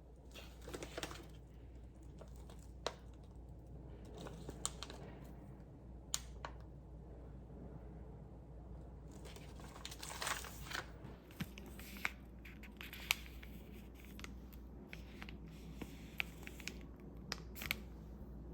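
Faint close handling noises: scattered sharp clicks and snaps mixed with short crinkling, tearing sounds.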